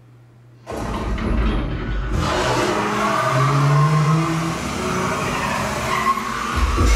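A film's action soundtrack played loudly through a Focal 300 series home theater speaker system: after a near-silent moment, a sudden loud burst of dense effects with deep bass rumble starts about a second in and keeps going.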